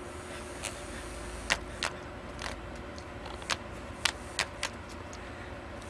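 Steady hum of an electric fan running on high, with several sharp, irregular clicks as the cat's mouth knocks the plastic toy.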